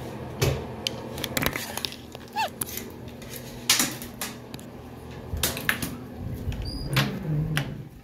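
Scattered clicks, knocks and rustles from handling: small objects being moved and put away while the phone is carried, over a steady low hum.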